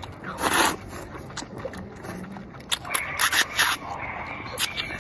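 Slurping of rice noodles: one long slurp about half a second in, then a run of quick, loud slurps around three seconds in.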